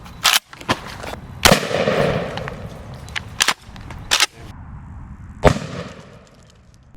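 12-gauge shotgun firing 00 buckshot: a string of sharp shots and impacts. The loudest come about a second and a half in and again about five and a half seconds in, each trailing off with echo.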